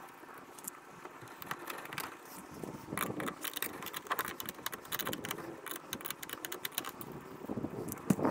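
Irregular small metallic clicks and rattles of hand work on a kayak's rudder hardware, with screws and cable fittings being undone to free the rudder cables.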